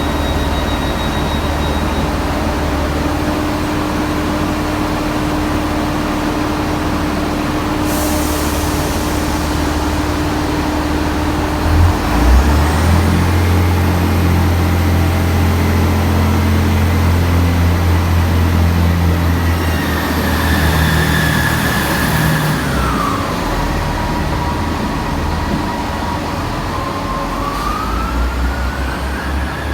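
Diesel train's engine running, then powering up about twelve seconds in as the train pulls away, with a drone that holds steady. A whining tone drops in pitch later on and climbs back near the end.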